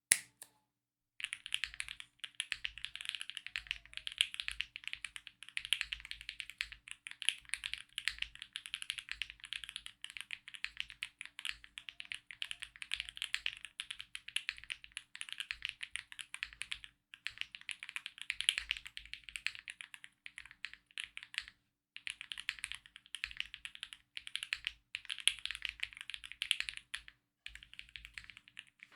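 Typing sound test on a custom 60% mechanical keyboard with Akko V3 Cream Blue switches lubed with Krytox, a brass plate and GMK doubleshot ABS keycaps, with PE foam and a tape mod added to make the sound clean and deeper. Rapid, continuous keystrokes start about a second in, with brief pauses near the middle and toward the end.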